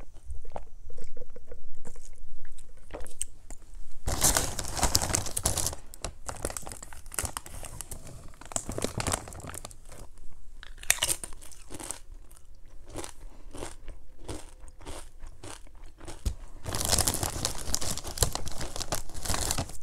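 Crunching and chewing of crisp chips, with rustling of the chip bags as a hand reaches in for more. The crunching is loudest about four to six seconds in and again near the end.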